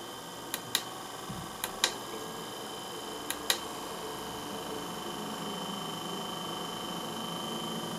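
Small electric motor running steadily, turning a 3D-printed Archimedes screw pump, with three pairs of sharp clicks in the first half. About halfway through, water lifted by the screw starts trickling out of the spout into a glass.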